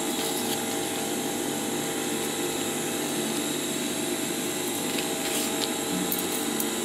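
Steady electric motor hum with several fixed tones, unchanging throughout. Near the end, stiff coated canvas crinkles briefly as it is handled.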